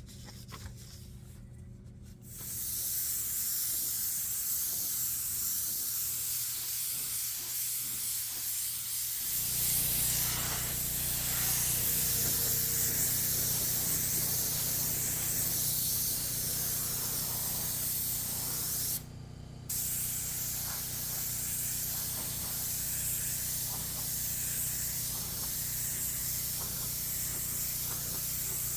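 Spray gun hissing steadily as paint or primer is sprayed onto a repaired car bumper, with one short pause in the middle. A steady low hum joins about nine seconds in.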